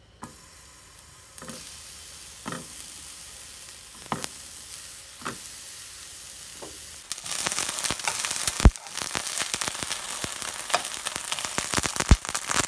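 Eggplant pieces sizzling in hot oil in a nonstick frying pan, with a few soft knocks in the first half. About halfway through the sizzle grows louder and crackles, with two sharp knocks later on.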